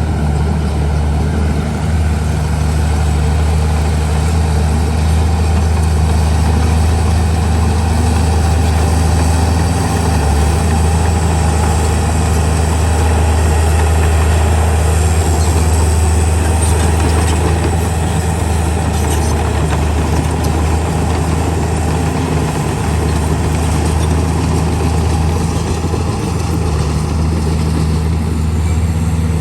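Heavy diesel engine of earthmoving machinery running steadily, a constant low engine note that holds its pitch throughout.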